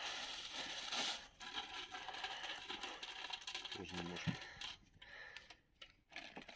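Alder wood chips pattering and rattling as they are poured out and spread in a thin layer in a smoker; the rustle thins out and stops a little past the middle.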